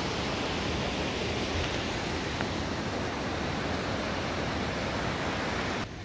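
Rushing water of river rapids in a rocky gorge: a steady, dense rush that cuts off suddenly near the end.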